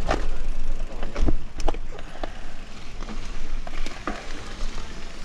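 Mountain bike riding down a wooden ramp and onto dirt: a steady rumble of tyres and rushing air, broken by several sharp knocks and rattles from the bike.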